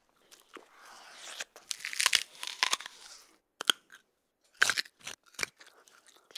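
Noisy chewing and crunching: a run of crisp crunches and mouth smacks, pausing briefly about four seconds in, then a few more sharp crunches.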